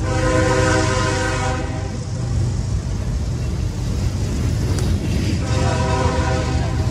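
CSX freight train passing close by: the locomotive's air horn sounds a chord for about two seconds, stops, and sounds again about five and a half seconds in. Under it run the diesel locomotives' low rumble and the rolling of covered hoppers and tank cars on the rails.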